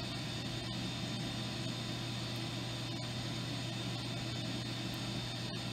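Steady machine hum with a faint high whine and a hiss, from a Zeiss coordinate measuring machine running its probe around a reamed hole.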